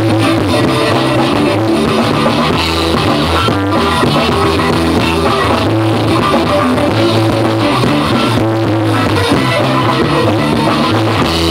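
A live funk rock band playing loud amplified music on electric guitar, electric bass and drum kit, with a steady bass line under the drums.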